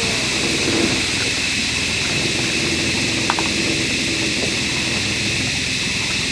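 Outboard motors of small river boats idling in a steady drone under a constant high hiss, with one sharp click about three seconds in.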